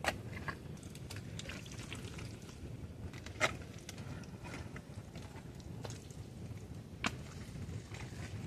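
Wet, sticky mangrove mud being dug and scooped out of a hole with a small hand tool and bare hands: wet squelching and sucking sounds, broken by a few sharp clicks and knocks, the loudest about three and a half seconds in.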